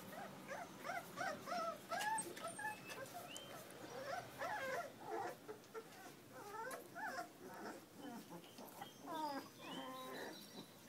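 Young puppies whimpering: many short, high whines that rise and fall, coming in clusters of several a second.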